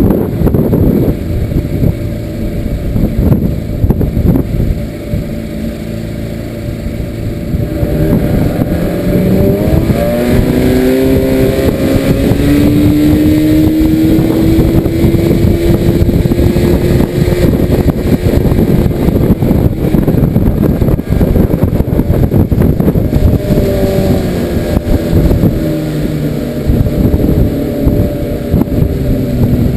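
Outboard motor driving a small aluminium skiff, under a heavy steady rush of wind and water noise. About eight seconds in the engine's note climbs as it throttles up, holds for several seconds, then sinks again later on.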